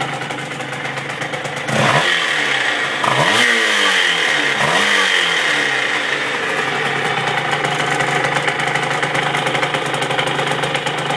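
Two-stroke Minarelli AM6 engine of a Yamaha TZR 50, bored to 75cc with a Top Performances cylinder and a Leovince exhaust, idling, then revved about two seconds in with a couple of quick throttle blips before dropping back to idle. The owner hears two strange noises from it: a resonating, circular drone that grows with the revs, and a rattle like something badly tightened that slaps and resonates.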